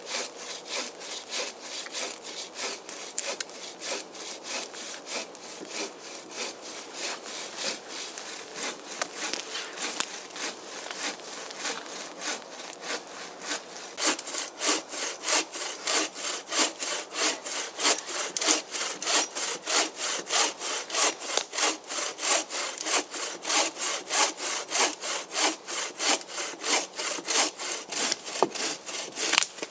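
Bow saw cutting through a log in quick, even back-and-forth strokes, which grow louder and sharper about halfway through.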